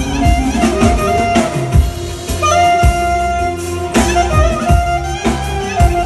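Clarinet playing a fast, ornamented melody over keyboard backing with a steady thumping beat.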